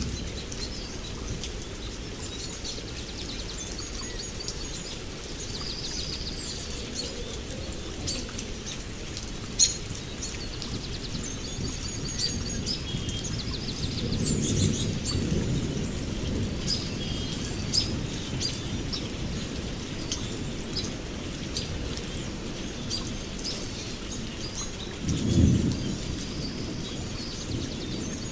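Birds chirping repeatedly over a steady low background noise, with a sharp click about ten seconds in and two short swells of low rumble, the louder one near the end.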